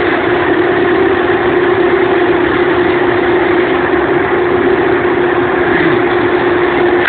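Steady running noise heard inside a train carriage: an even, loud rumble with a constant hum held throughout.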